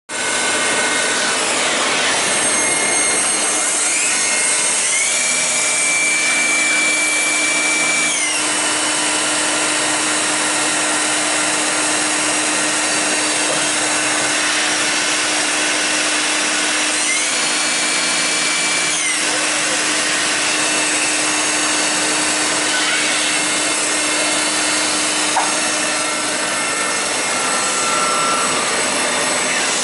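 1999 Tornos Deco 26 CNC Swiss-type lathe running a machining cycle: a steady wash of machine and coolant-spray noise. A high whine rises, holds for a few seconds and drops away, more than once, as the spindle and axes change speed.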